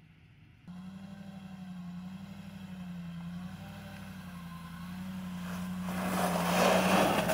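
Lexus GX SUV's engine running at low revs as it crawls up a gravel dirt track close by. Its tyres crunch on the gravel as it passes, loudest near the end.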